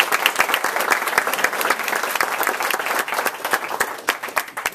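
Audience applauding, a dense patter of many hands clapping that thins out and stops near the end.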